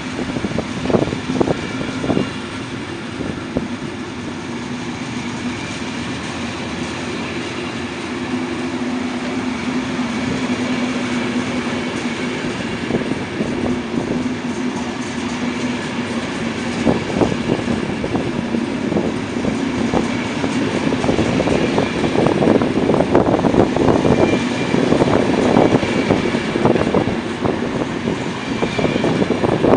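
Corail passenger coaches rolling past, their wheels clacking over the rail joints. A steady hum runs under the first half, and the clacks grow denser and louder in the second half.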